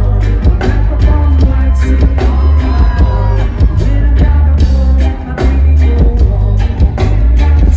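Live band playing a song with a heavy bass line, drums and a singing voice, loud through a PA.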